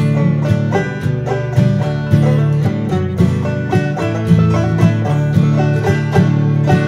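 Instrumental background music: quick, banjo-led bluegrass picking over a steady bass line.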